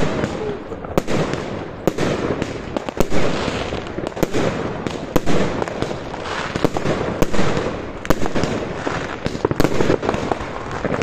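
Fireworks going off overhead: sharp bangs about one or two a second over a continuous crackle.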